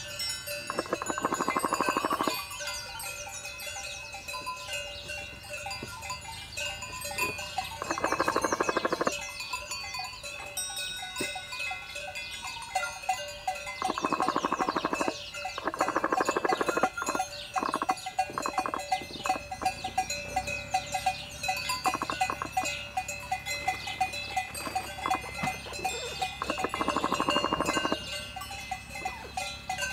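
Cowbells ringing steadily on grazing livestock. A drawn-out call lasting one to two seconds comes about five times, and small birds chirp in the background.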